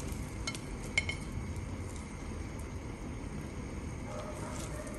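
Tomato broth simmering steadily in a clay pot, with a few light clicks of kitchen tongs about half a second and a second in as they turn and lift the rice fritters.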